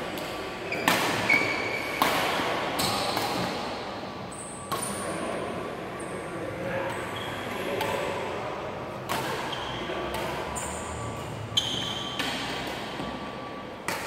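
Badminton rackets striking a shuttlecock during a rally: sharp cracks a second or several apart, ringing in a large echoing hall. There are short high squeaks from court shoes on the wooden floor and some faint voices.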